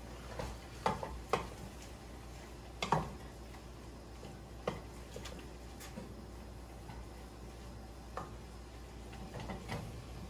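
Wooden spoon stirring a steaming pot on the stove, knocking against the pot now and then: a handful of short, sparse clicks, the loudest about three seconds in.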